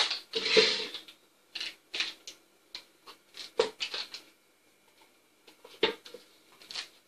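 Light clicks, taps and a brief scrape of a spoon and utensils against a plastic blender jug as chopped vegetables and yogurt are put in. The sounds come singly and irregularly, about ten in all.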